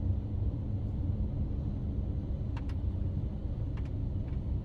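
Steady low rumble of a car driving, heard from inside the cabin, with a few faint clicks a little past halfway.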